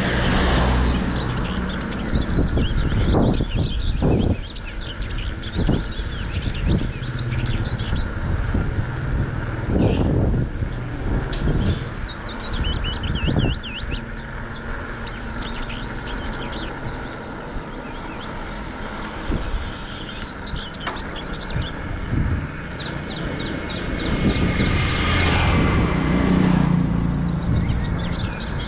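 Bicycle tyres rolling on the road, a steady low rumble with occasional knocks over bumps, while small birds chirp. A louder swell of noise builds and fades a few seconds before the end.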